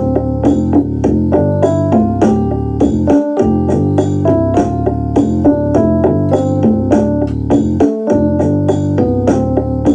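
Keyboard music: piano-like notes played in a quick melody over chords and a sustained bass line, with a steady beat. The bass drops out briefly about three seconds in and again near eight seconds.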